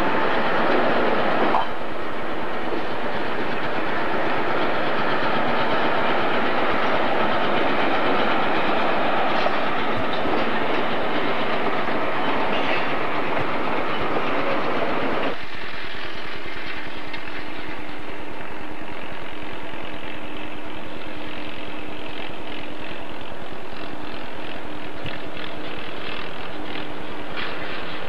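A freight train rolling past, railcar wheels rumbling with some clickety-clack over rail joints. About halfway through the sound changes suddenly to a diesel locomotive approaching, its engine running with a steady hum.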